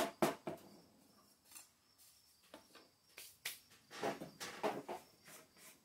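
Scattered light clicks and taps of hands handling a wooden paint stir stick, plastic mixing cup and small spray-gun parts on a workbench: a few quick taps at the start, a brief lull, then a cluster of louder taps.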